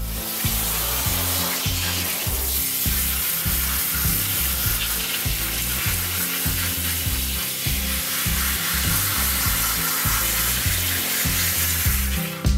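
Water spraying from a hand-held pistol-grip hose nozzle onto a soapy dog in a grooming tub: a steady hiss as the shampoo is rinsed out. Background music with low bass notes plays underneath.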